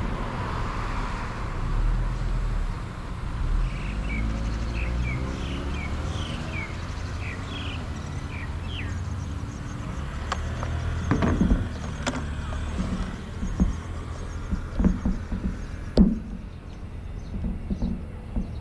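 Low, steady rumble of street traffic, with a few short high chirps in the first half. In the second half come a series of knocks and clatter, the loudest a single sharp knock near the end, as an FPV radio transmitter is handled and set down on the car beside the drone.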